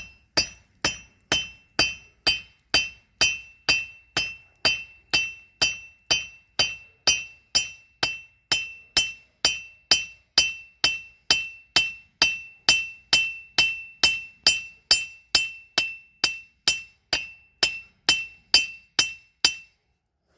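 Blacksmith's hand hammer striking a hot steel bar on an anvil, about two and a half even blows a second, each with a short bright metallic ring, drawing the bar out flat. The anvil's ring is damped a little by a magnet stuck to it. The hammering stops shortly before the end.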